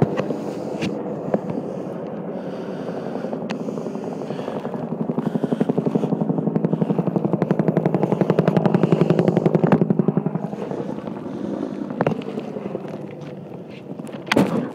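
Helicopter rotor noise, growing louder over several seconds into a rapid, rhythmic blade beat as it passes close, then fading again about ten seconds in. A few sharp cracks stand out over it, the loudest near the end.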